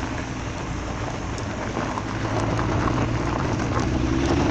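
Car driving on the road, heard from inside: a steady engine hum and tyre noise, the engine tone rising slightly near the end, with scattered light ticks over it.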